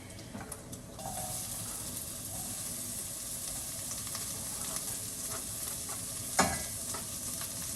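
Onion frying in hot oil in a pot, sizzling steadily; the sizzle grows about a second in. A single sharp knock about six and a half seconds in.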